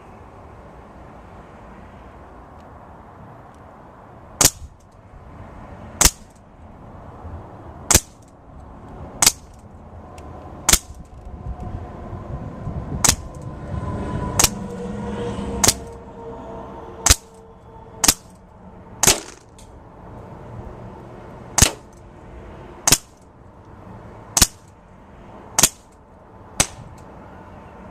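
H&K USP non-blowback CO2 airsoft pistol firing about sixteen single shots, each a short sharp pop, spaced one to two seconds apart and starting about four seconds in.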